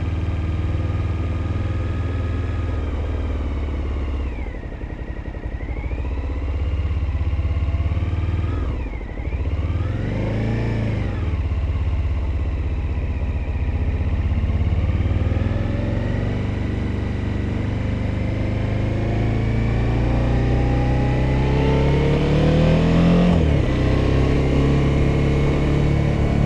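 Engine running under way, its pitch dipping and rising a couple of times, then climbing steadily through the second half before dropping sharply near the end.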